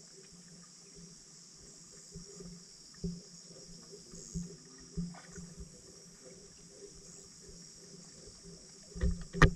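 Underwater sound picked up by a camera submerged in lake water: a steady hiss and low hum with scattered soft knocks and pops, and a sharper cluster of knocks near the end.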